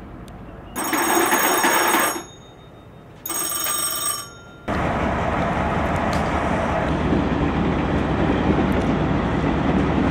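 An electric bell rings in two bursts, each a second or so long. About halfway through, a diesel locomotive's engine takes over, running steadily.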